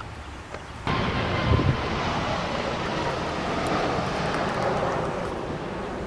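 Jet airliner flying low overhead: a steady, loud rush of engine noise that comes in suddenly about a second in.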